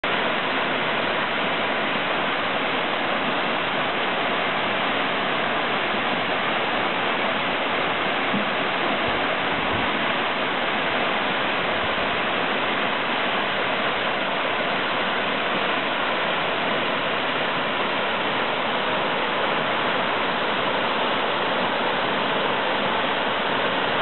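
Waterfall pouring over a rock face: a steady rush of falling water.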